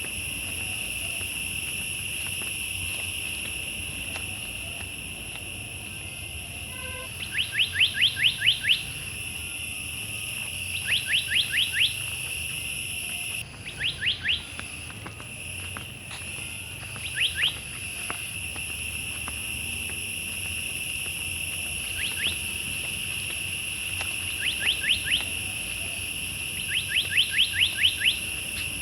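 A bird calling in short runs of quick, rising whistled notes, several notes a second, repeated seven times, over a steady high-pitched drone of insects.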